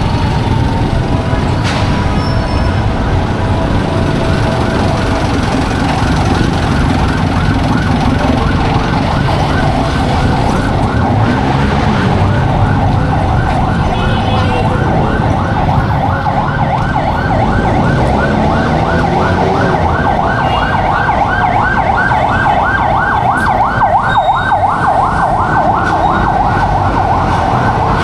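Emergency-vehicle siren in a fast yelp, rising and falling several times a second. It comes in about a third of the way through and grows louder toward the end, over the steady rumble of street traffic.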